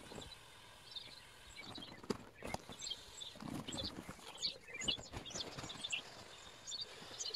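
Sound of a vinyl inflatable dragon being squashed and deflated, played back at ten times speed: a rapid jumble of high squeaky chirps, short rubbing squeals and scattered knocks.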